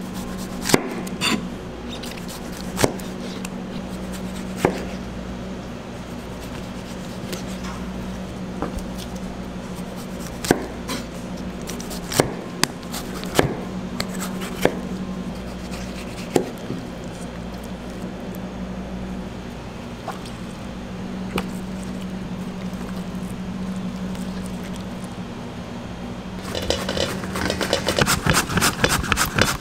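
Chef's knife slicing through ripe tomatoes on a plastic cutting board, each cut ending in a sharp knock of the blade on the board every second or two, over a steady low hum. Near the end an onion is pushed quickly back and forth across a mandoline slicer, a louder, fast run of rasping strokes, several a second.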